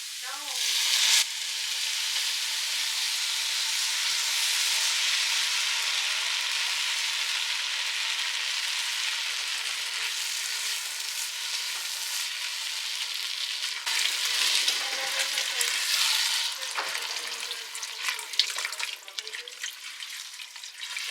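Food frying in a hot pan: a steady sizzle that swells sharply about a second in and again briefly around two-thirds of the way through, with some stirring clicks near the end.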